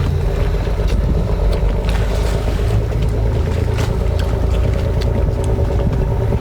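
A steady low motor drone with a hum, with scattered short clicks and smacks of shellfish being sucked and chewed on top.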